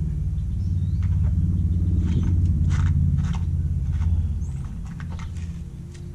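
A low engine rumble swells over the first few seconds and fades toward the end, with scattered light clicks and taps.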